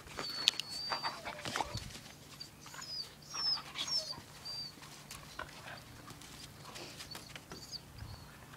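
Dogs play-wrestling at close range: scuffling and small knocks, with a few brief high-pitched squeaks.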